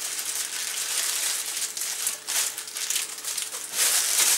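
A thin plastic bag crinkling and rustling as hands squeeze the air out of it around marinating chicken pieces, to make the bag airtight.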